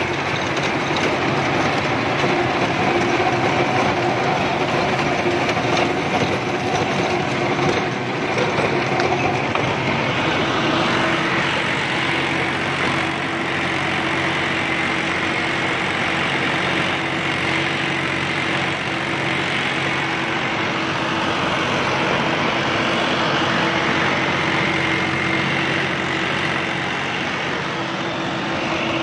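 John Deere 5075E 4WD tractor's diesel engine running steadily under load while a tractor-mounted gear-drive rotavator tills the soil, a dense mechanical clatter over a steady engine drone.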